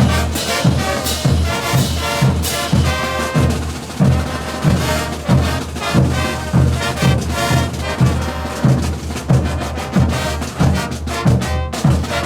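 Bolivian brass band playing a morenada: trumpets and trombones over a steady beat of bass drum and percussion, with low drum strokes about every two-thirds of a second.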